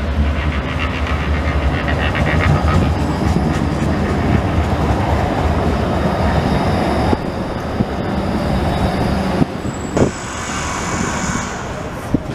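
Bombardier Flexity Outlook low-floor electric tram passing close by on street track: a steady low rumble of steel wheels on rail, with a brief high whine about ten seconds in.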